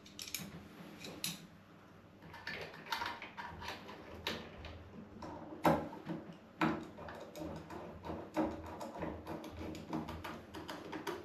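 Screws being fitted one at a time into a shower mixer valve: irregular small metallic clicks, taps and scrapes, with one sharper knock a little past the middle.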